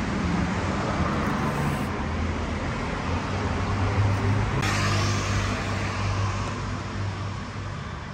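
Road traffic noise: a steady rumble of passing vehicles with a low engine hum.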